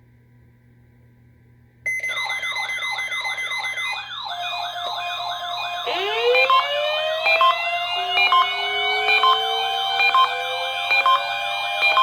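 Sirens sounding together. A fast yelp starts about two seconds in. About six seconds in, several siren tones wind up in pitch and level off, with a short beep repeating about once a second.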